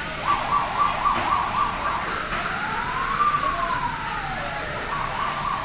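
A siren sound: a fast warbling tone, then one slow wail that rises and falls, then the fast warble again near the end.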